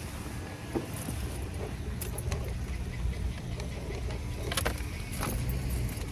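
Car cabin noise while driving: a steady low road rumble with scattered light clicks and rattles, the strongest a little past the middle.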